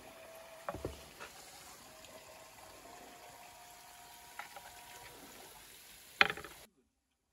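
Metal skewers knocking against a carved wooden platter as they are laid on it, over a faint steady hiss: a couple of clacks about a second in, another a little past four seconds, and the loudest knock just after six seconds. The sound then cuts off abruptly.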